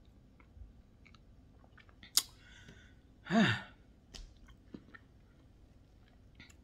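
Soft mouth sounds of a person chewing: scattered small clicks and smacks, with one sharper click about two seconds in. A short falling vocal sound, like a brief sigh or hum, comes a little past the middle.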